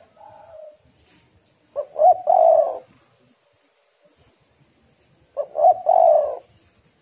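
Spotted dove cooing: a soft coo at the start, then two loud phrases, about two seconds in and again about five and a half seconds in. Each phrase is a couple of short coos running into a longer coo.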